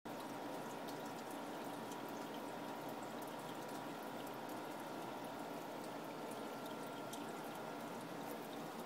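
Aquarium filter water trickling steadily into the tank, with faint scattered drip ticks and a faint steady hum.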